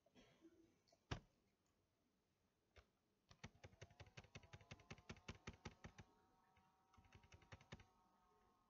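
Faint computer keyboard typing: a single sharp click about a second in, then a quick run of keystrokes, several a second, from about three to six seconds, and a few more near the end.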